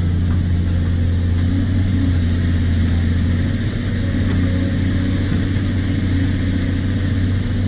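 Caterpillar hydraulic excavator's diesel engine running with a steady low hum while it works.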